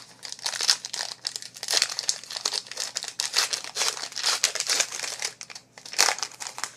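Foil wrapper of a trading-card pack being torn open and crinkled by hand, an irregular run of crackles and rips that dies away near the end.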